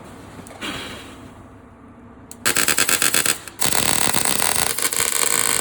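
Two bursts of loud, harsh crackling noise from a power tool working the metal of the chassis. The first lasts about a second; the second starts after a short break and lasts about two seconds.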